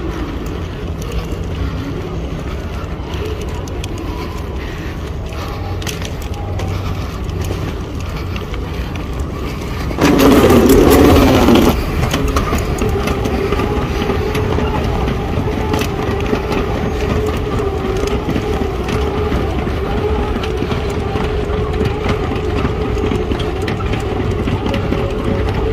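Airport moving walkway riding noise: a steady low rumble, a loud burst about ten seconds in as the walkway is boarded, then a steady hum from the walkway running to the end.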